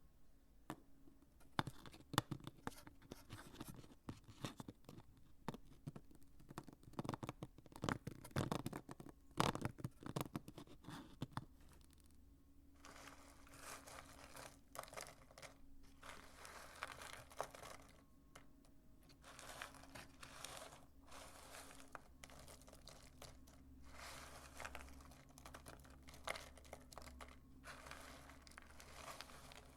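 Dry soap crunching and crumbling close up: a dense run of sharp crackles for about the first twelve seconds, then softer crumbling rustles in bursts.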